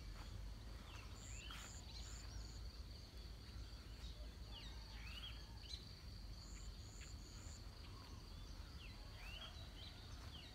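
Faint rural morning ambience: scattered short bird chirps over a steady high insect hum and a low rumble, with two runs of short, very high notes, about a second in and again past the middle.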